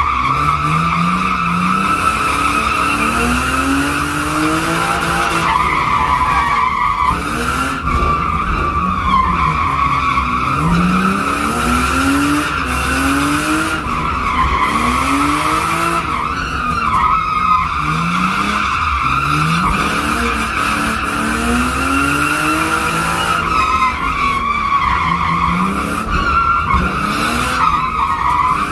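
A car drifting: its tyres squeal steadily while the engine revs climb and drop back every couple of seconds, heard from inside the cabin.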